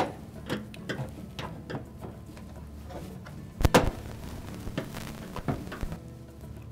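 Small plastic clicks and taps as a flat-blade screwdriver pries at the plastic drain-access cover on the front panel of a washing machine, working it free of its clips, with one louder knock a little past halfway.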